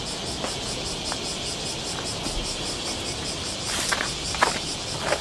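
Insects in the forest calling in a steady chorus of rapid, even high-pitched pulses. Near the end, footsteps and brushing through dry undergrowth give a few short crackles, the loudest about four seconds in.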